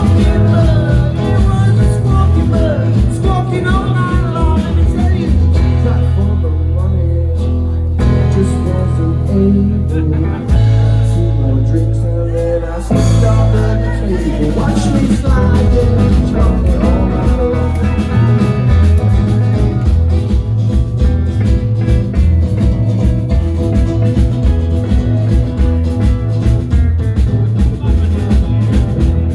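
A live rock band plays on stage: electric guitars, bass and drums with a sung vocal line. Partway through, the band drops back to a held, bass-heavy passage for several seconds before the full band comes back in.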